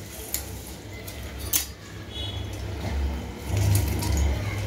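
Half a lemon being squeezed by hand over raw chicken in a bowl: a few light clicks and knocks of handling, the strongest about one and a half seconds in, over a low steady hum.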